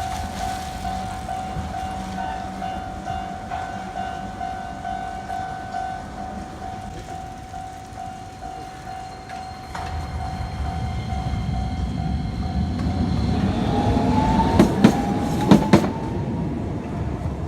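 Japanese level-crossing warning bell sounding its steady electronic kan-kan tone. About ten seconds in, a train approaches with a growing rumble and passes, its wheels giving a handful of sharp clacks over the rail joints near the end.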